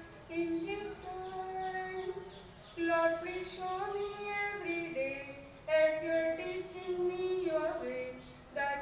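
One high voice singing a slow melody, holding long notes and gliding between pitches.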